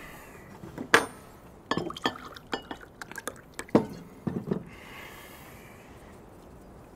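Tableware on a wooden table during a meal: glass, plates and cutlery clinking and knocking in a string of sharp taps, the loudest about a second in.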